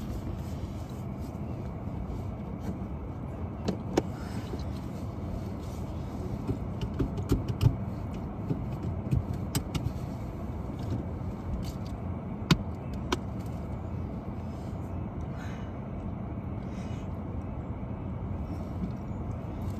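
Steady low outdoor rumble, with scattered sharp clicks and knocks.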